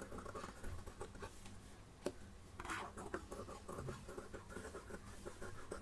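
Tailor's shears snipping through layered fabric to trim the stitched neckline seam: a series of faint, irregular crisp snips and scratches.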